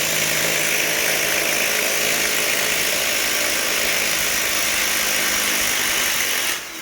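Steady machine noise with a strong hiss and a faint low hum, cutting off suddenly near the end.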